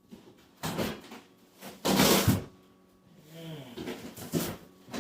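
Cardboard shipping box being handled and pulled open: a few short scraping, rustling bursts, the loudest about two seconds in. A short pitched whine or moan a little after three seconds.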